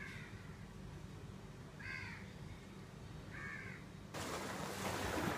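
A bird giving three short, harsh calls about a second and a half apart. About four seconds in, a steady rushing noise cuts in suddenly.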